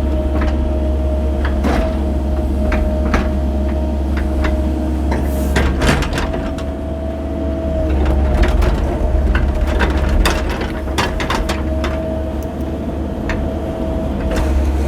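Cat 308 mini excavator working: its diesel engine drones steadily under a steady hydraulic whine, with many irregular knocks and scrapes as the bucket digs through dirt and gravel.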